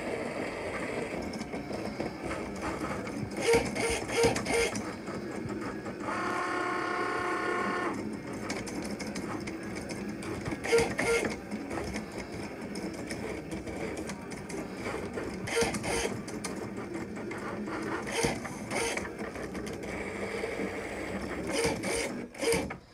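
Cricut cutting machine running as its rotary blade cuts fabric and the mat feeds back and forth: a steady motor whirr with a higher whine for about two seconds around six seconds in, and short clusters of quick clicks several times.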